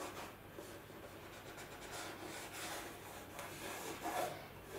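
Faint rubbing of a model covering iron's cloth-socked shoe sliding over heat-shrink film on balsa, smoothing down the rough edges of a film overlap.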